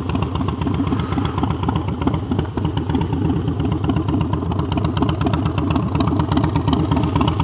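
A 2008 Harley-Davidson Street Bob's Twin Cam V-twin idling steadily with a rapid pulsing beat.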